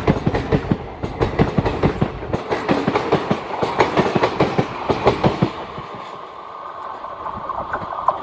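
Indian Railways train coaches rolling past, their wheels clicking rapidly over the rail joints. About five and a half seconds in the clatter drops away and a fainter, steady whine remains.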